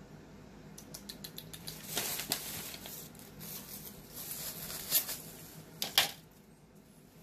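Tabletop handling noises: a quick run of light clicks about a second in, some rustling, then two sharp knocks about five and six seconds in, the second the loudest.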